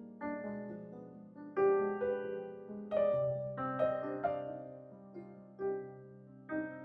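Background music: slow, gentle solo piano, single notes and chords struck and left to ring.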